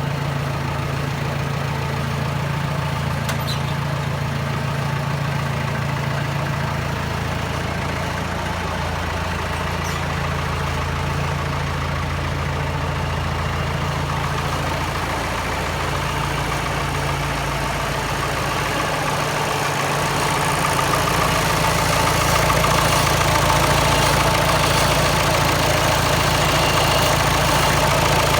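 Mahindra DI diesel engine of a modified Willys-type jeep idling steadily with its bonnet open, getting a little louder about two-thirds of the way through.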